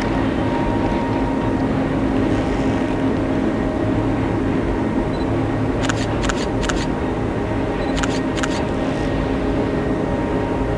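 A distant train running along a viaduct across a valley makes a steady mechanical hum. A few sharp clicks come in two small groups, about six and eight seconds in.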